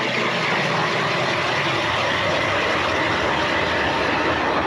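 Battery-powered ION electric ice auger running steadily as its blades cut a hole down through lake ice.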